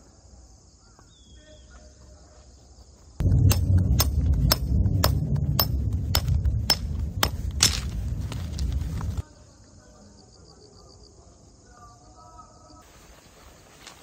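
A hammer driving a metal tent peg into the ground: about a dozen sharp, evenly spaced strikes, roughly two a second, some with a short metallic ring. The strikes start and stop abruptly, with steady high chirping of insects before and after.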